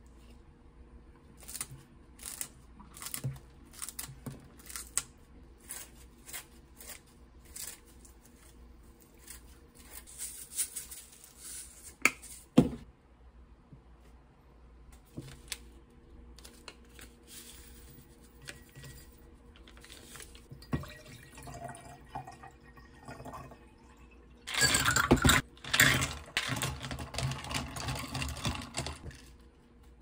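Kitchen handling sounds: chopsticks and dishes tapping and clinking on a ceramic bowl and a glass, with one sharp knock about halfway through. Near the end comes a louder stretch of liquid being poured into the glass.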